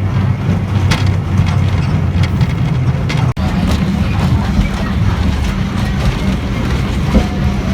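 Botchan Train's diesel locomotive running along the line, a steady low rumble, with scattered clicks and knocks as the train rolls over the rails. The sound cuts out for an instant a little over three seconds in.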